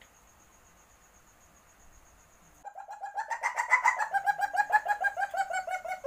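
Civet mating call: a fast chattering run of pitched notes, about ten a second, that starts about two and a half seconds in, peaks a second later and stops abruptly at the end. Before it, only a faint high pulsing trill.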